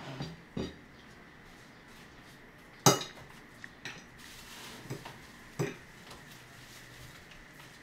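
A metal fork clinking on a plate of spaghetti: one sharp clink about three seconds in, then a few lighter taps.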